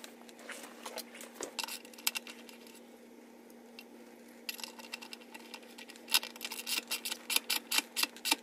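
Hand ratchet with a deep socket clicking as a threaded, Teflon-taped vacuum-port fitting is screwed into an intake manifold. A few scattered clicks and handling knocks come first, then about halfway through a steady run of quick ratchet clicks, several a second.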